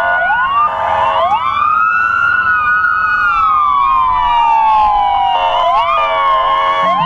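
Siren wailing as a motorcade of SUVs passes: a long tone that rises over about two seconds and then falls slowly, with several siren tones overlapping. Short steady blasts break in near the start and again about five and a half seconds in.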